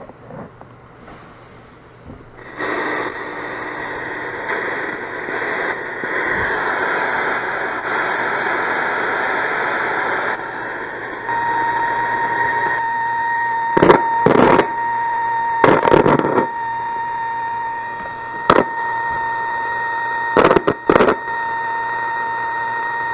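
Vintage Cariole shortwave radio's speaker hissing with static while it is tuned across its air/weather band, the hiss coming up suddenly about two and a half seconds in. Past the middle a steady high whistle joins the static, and several sharp clicks cut through it.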